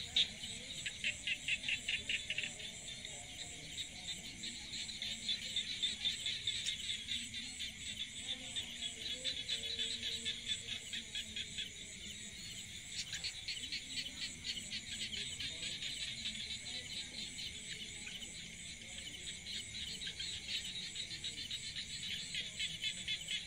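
Chorus of insects: a fast pulsing trill throughout, strongest in the first couple of seconds, with a steady high whine above it.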